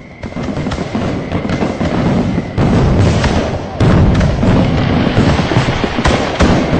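Firecracker barrage: dense rapid crackling over a low rumble of booms, swelling in the first second, with heavier bursts about two and a half and four seconds in.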